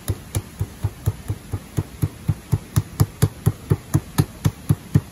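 Pizza dough being flattened by rapid palm slaps on a wooden cutting board: a steady run of dull thuds, about four a second.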